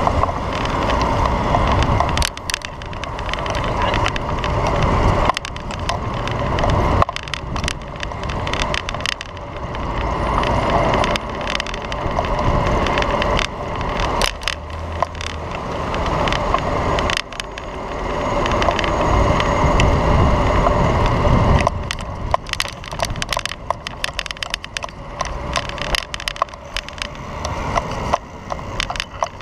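Riding a bicycle along a city bike lane, heard from a camera on the bike: wind rumbling on the microphone, sharp clicks and rattles as the bike goes over bumps, and the wash of car and motorbike traffic passing alongside, swelling and fading.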